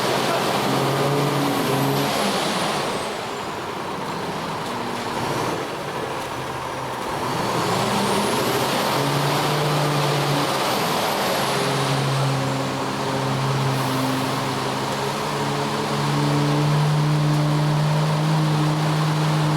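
Ready-mix concrete truck's diesel engine running, its pitch shifting as the revs rise and fall, with a dense rushing noise over it.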